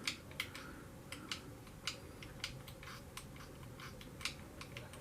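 Faint, irregular light clicks and taps of a small plastic slot car being handled, about a dozen in a few seconds.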